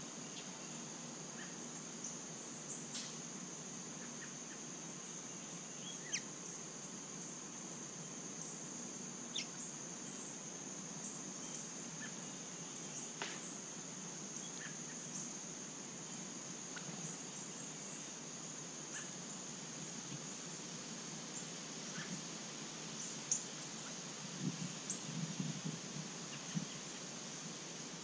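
Steady high-pitched insect drone with scattered short, sharp bird chip notes, and a brief burst of soft low rustling near the end.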